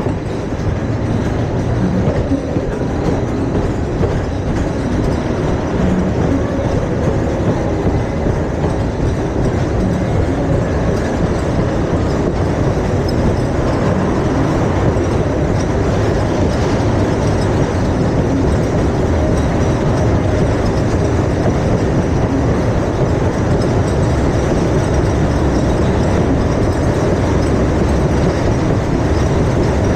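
Steady, continuous rumbling and rattling of a moving ride vehicle heard from on board, with a clickety-clack like a small train on rails.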